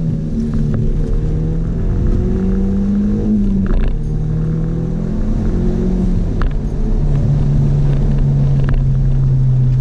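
Audi S3 (8L) 1.8-litre turbocharged four-cylinder engine heard from inside the cabin while driving, over low road rumble. The engine note rises and drops in pitch a few times, then from about seven seconds in holds a steady, louder drone.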